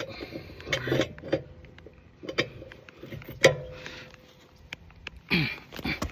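Metal clanks and knocks from a four-way lug wrench working on a van wheel's lug nuts, irregular, the loudest about three and a half seconds in with a brief ring. A short falling-pitched sound comes about five seconds in.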